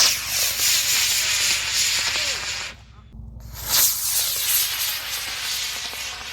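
Model rocket motor burning with a loud rushing hiss, in two stretches of about three seconds each, split by a short break near the middle.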